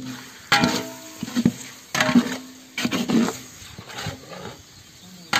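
Long-handled metal ladle stirring thick chicken biryani masala in a large aluminium pot, scraping the metal about four times, roughly once a second.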